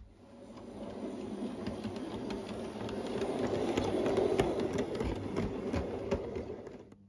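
O gauge model train running past on its track: the wheels give a rolling rumble that builds to its loudest about four seconds in and fades away near the end, with scattered sharp clicks from the wheels on the rails.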